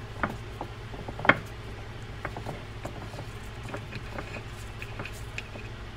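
Scattered light metal clicks and ticks from hands working the bearing area of a Penn Senator 6/0 reel's side plate, checking whether the bearing is seated. The loudest click comes about a second in. A steady low hum runs underneath.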